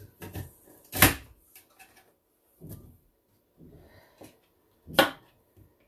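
Push-down vegetable chopper pressed through cucumber. There are two sharp clacks about four seconds apart, the first the louder, with softer knocks and handling between them.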